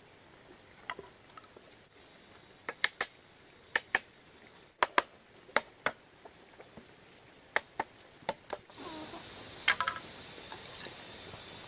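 Sharp knocks of work on bamboo, many in quick pairs, a pair every second or so. A steady hiss with a high tone comes in near the end.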